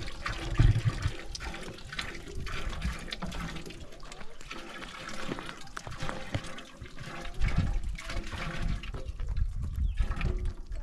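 Water running from a hose into a large metal cooking pot partly full of water, splashing and gurgling as the pot fills. Low rumbles swell about a second in and again near the end.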